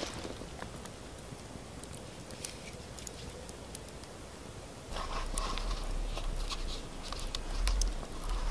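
Small wood campfire crackling, with scattered sharp pops and ticks. About halfway through, a low rumble sets in along with rustling and clicking as the stick is dipped into a pot of batter.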